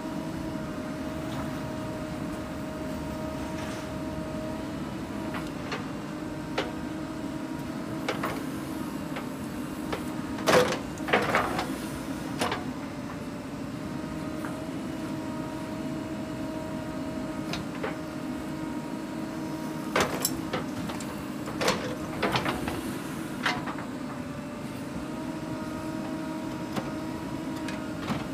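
JCB 3DX backhoe loader's diesel engine running steadily under load as the backhoe arm digs, with a held whine over the engine note. Sharp knocks and clatter from the steel bucket and falling clods of earth come in two clusters, about ten seconds in and again about twenty seconds in.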